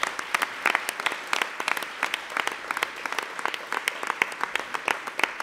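Audience applause: many people clapping, with a few close, sharp claps standing out from the dense patter.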